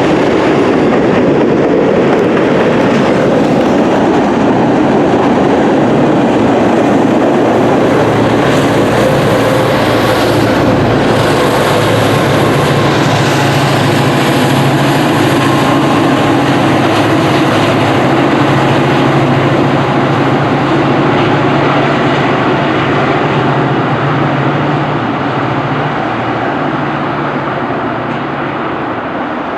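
Long freight train of the Norfolk Southern 35A rolling past with steady wheel and car noise. From about twelve seconds in, the low drone of diesel locomotive engines working hard joins it, which fits the helper locomotives pushing on the rear of the train up the grade. The sound eases off toward the end as the train moves away.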